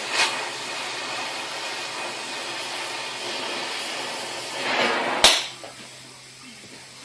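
A gas torch flame hissing steadily as it heats a seized vise bolt, cut off about five seconds in by one sharp snap. After the snap it is much quieter.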